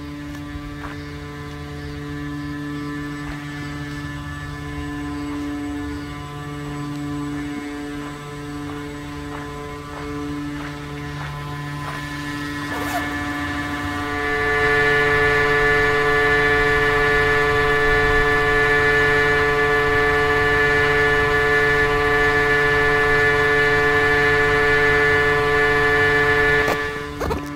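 Steady hum of quarry plant machinery, a stack of even tones with no speech. It gets noticeably louder about halfway through, then cuts off just before the end.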